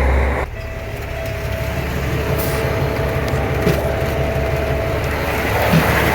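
Heavy diesel truck engine running steadily with a low rumble, warmed up on a cold morning, with a faint steady whine that stops about five and a half seconds in.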